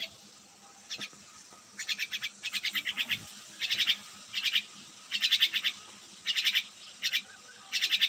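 A myna calling in short bursts of rapid, high chirps, about one burst a second, each burst a quick run of five or six notes.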